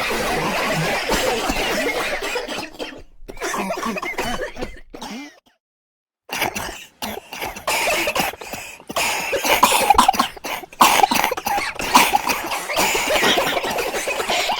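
A crowd of people coughing over one another. The sound cuts out completely for about a second midway, then the coughing resumes.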